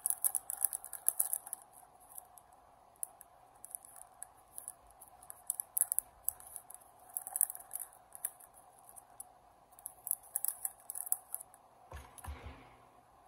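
Mail packaging being cut and opened by hand: bursts of short, crisp snips and rustles, with a soft thump near the end.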